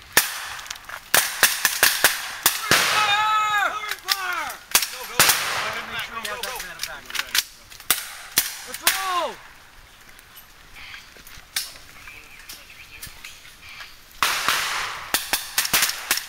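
Small-arms fire in a firefight: irregular sharp rifle shots, thick in the first half, thinning out in the middle and picking up again near the end. Shouted voices come between the shots twice.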